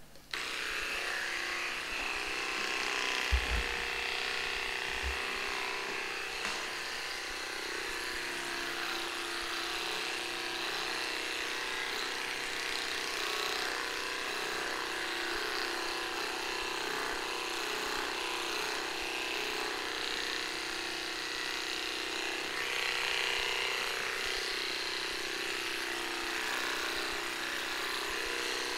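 Electric dog hair clipper switched on and running with a steady buzz as it trims a small dog's coat, with two low knocks a few seconds in.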